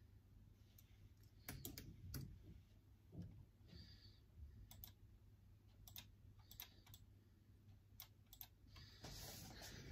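Faint, scattered keystrokes on a computer keyboard, a few at a time with pauses between, and a soft rustle near the end.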